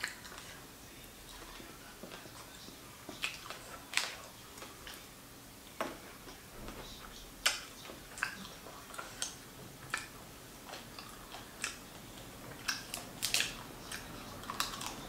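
Close-miked eating sounds: irregular crunchy bites, chewing and mouth clicks as fried whole fish is eaten by hand.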